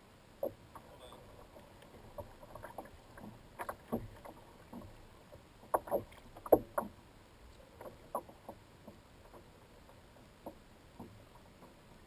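Scattered light knocks and taps on a sit-on-top plastic kayak as a fish is handled aboard, the loudest a little past halfway, over a soft steady background of water and wind.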